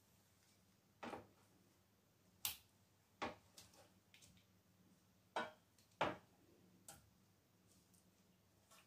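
Metal kitchen tongs clicking and knocking against a roasting pan while turning roasted carrots in the gravy: about six light clicks and short scrapes, spread unevenly.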